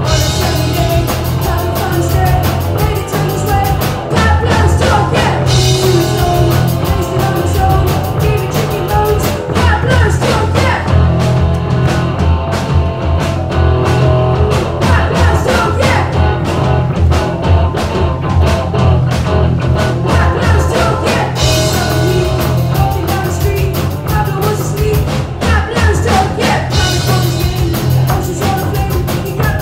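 Live rock band playing: electric guitar and drum kit with a boy singing lead vocals, loud and continuous, with a steady drum beat.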